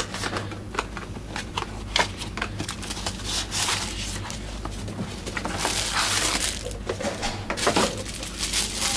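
Cardboard camera packaging being handled, with scattered knocks and scrapes as an inner box is slid out and opened. From about five and a half seconds in, a denser crinkling of a plastic bag and foam packing as a wrapped item is pulled out.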